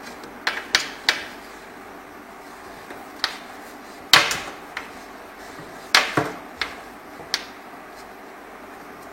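Sharp knocks and clacks, about ten in all and irregularly spaced, the loudest a little past the middle, from the panel air conditioner and its fixings being handled and fitted onto the mounting panel.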